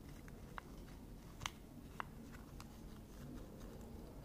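A few faint, irregular metal clicks and ticks as fingers handle and turn the roller-bearing valve rocker arms of a Bajaj Pulsar 150 head.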